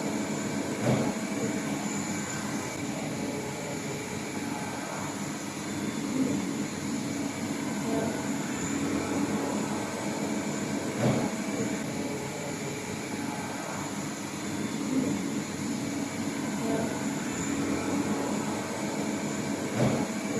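Steady hum of machinery running on a machining shop floor, with a sharp knock about every five seconds.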